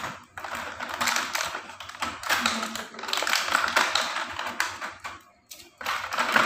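Plastic toy train track sections clattering and clicking against each other as they are handled, in a quick irregular run of light clicks that stops briefly about five seconds in.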